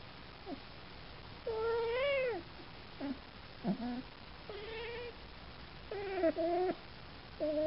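Domestic cat meowing repeatedly: a string of short meows, with one longer meow about two seconds in that rises and then falls.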